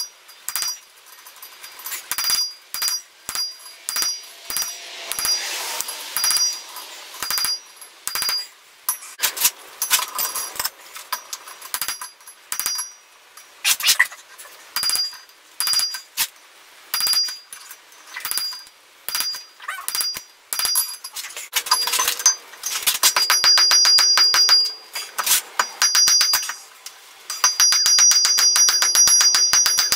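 Hand hammer striking red-hot iron bar stock on an anvil, each blow ringing high and metallic. The blows are spaced irregularly at first, then come in quick runs of rapid strikes from about two-thirds of the way through and again near the end.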